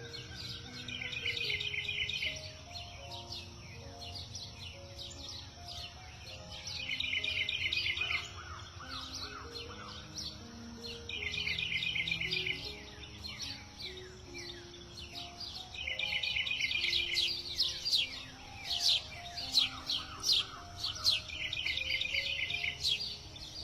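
Songbirds chirping and calling, with a fast trill that repeats about every five seconds and a flurry of loud rapid chirps near the end, over soft low melodic notes.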